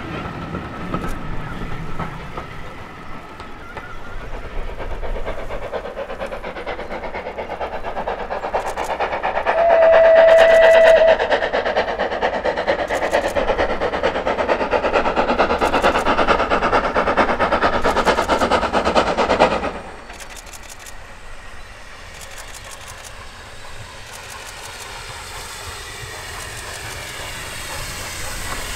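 Steam railway sounds: coaches rumbling on the rails, then one short steady steam-whistle blast about ten seconds in over a loud rushing train noise, which cuts off suddenly about two-thirds of the way through. An approaching steam locomotive, No. 52044, grows louder near the end.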